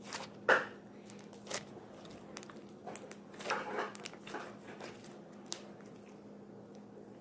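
Opaque homemade slime being squished and pressed in the hands, giving scattered small pops and clicks. The loudest pop comes about half a second in, and a cluster of them comes a little past the middle, over a faint steady hum.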